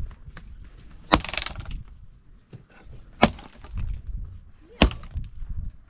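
A mattock chopping into a dry tree branch on stony ground: three hard, sharp blows about one and a half to two seconds apart, each with a crack of wood.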